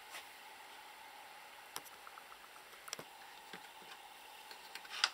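Quiet room hiss with a few faint, scattered clicks and taps of hands handling the metal LCD monitor assembly, the loudest a little before the end.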